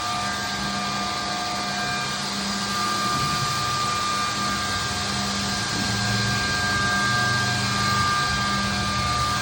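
Edge banding machine running steadily: a constant motor hum with several steady whining tones over a broad mechanical noise.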